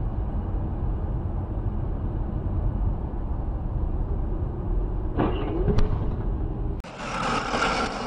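Steady low road and engine rumble from inside a moving car, picked up by a dashcam, with a brief higher sound about five seconds in. Near the end it cuts abruptly to louder, brighter traffic noise from another dashcam.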